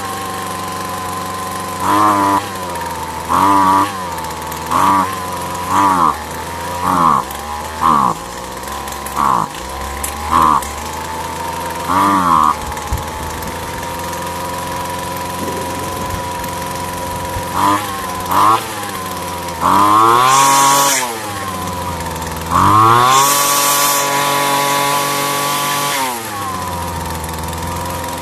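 Gas string trimmer's two-stroke engine idling steadily and being blipped with the throttle: about nine quick revs a second or so apart, a pause at idle, two more blips, then a longer rev and a held high rev for about three seconds before it settles back to idle. This is a run test after a carburetor high-speed screw adjustment, and the engine now idles and takes throttle.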